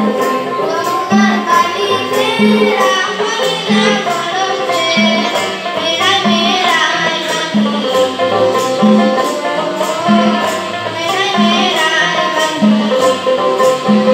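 A boy singing an Assamese children's song, accompanied by harmonium and guitar, with a low drum stroke repeating a little more than once a second.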